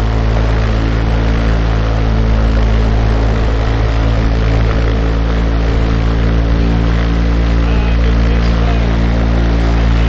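Light sport aircraft's piston engine and propeller running steadily, heard from the cockpit, with no change in pitch or power.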